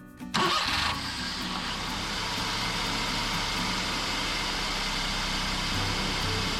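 Daihatsu Hijet S211P kei truck engine starting about half a second in, with a short burst on catching, then settling into a steady idle.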